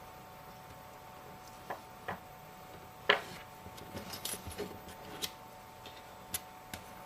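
Small tools and metal parts clicking and tapping against an iPhone 5S during reassembly: a string of light, irregular clicks, the loudest about three seconds in and a quick cluster a second or so later, over a faint steady hum.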